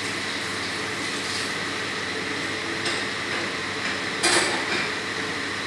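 A steady kitchen-appliance hiss with a faint high whine, broken by a light clink about three seconds in and a louder brief clatter of kitchenware a little after four seconds.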